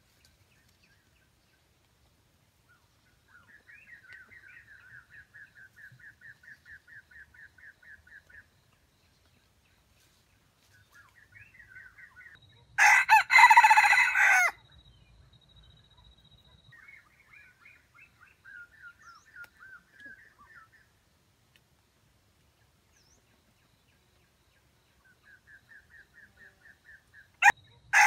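Junglefowl rooster crowing twice: a short, loud crow about halfway through and another starting just before the end. Between the crows are runs of quick, rhythmic clucking, about three or four calls a second.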